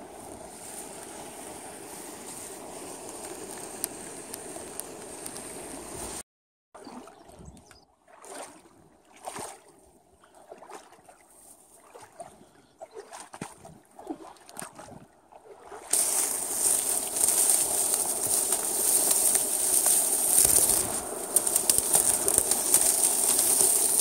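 A steady rush of flowing water, then after a cut a quiet stretch of scattered knocks and rubbing from a covered camera being carried. About two-thirds of the way in, loud crackling and rustling of dry reed stems as someone pushes through a reed bed.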